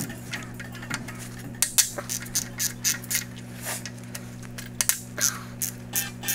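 Hand tools clicking and knocking on the old water pump and its pulley as it is unbolted from a BMW M50 engine block: a string of sharp, uneven clicks, a few each second, over a steady low hum.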